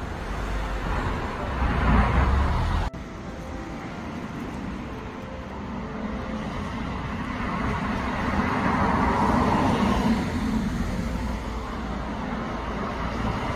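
Street traffic: cars passing on a city road. One vehicle swells past about two seconds in, the sound breaks off abruptly just before three seconds, and another vehicle swells and fades in the middle.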